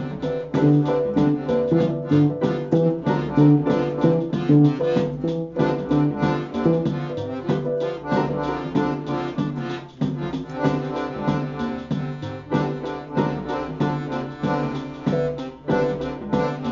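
Live instrumental music from keyboard, accordions and a sequencer with programmed beats: a busy repeating pattern of short keyboard notes over a steady electronic beat.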